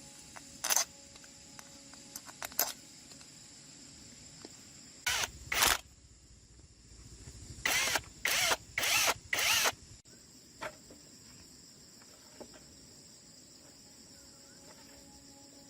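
Crickets chirring steadily in the background, broken by short, noisy work strokes: two early on, a pair about five seconds in, then four in a quick, even row near the middle.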